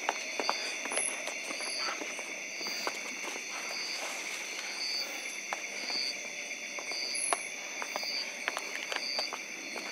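Night insects: a steady, high-pitched cricket drone with a short chirp repeating a little more often than once a second. Scattered light clicks and rustles of footsteps through vegetation.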